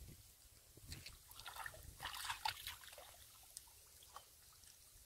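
Shallow muddy water sloshing and splashing as hands grope through it, in irregular bursts that are busiest about two seconds in.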